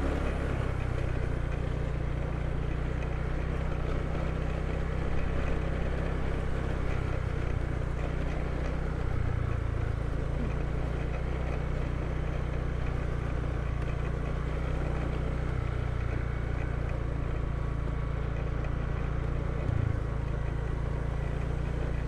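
Motorbike being ridden on an unpaved, sandy road, its engine running at a steady low rumble.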